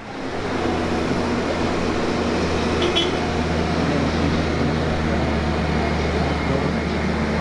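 Parking tram's engine running with a steady low hum, coming in just after the start and holding even, with a small click about three seconds in.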